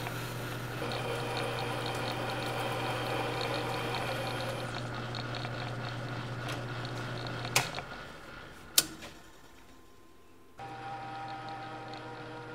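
Metal lathe running with a steady motor hum. About seven and a half seconds in there is a sharp click and the hum cuts out, a second click follows about a second later, and after a short quiet stretch the lathe is running again.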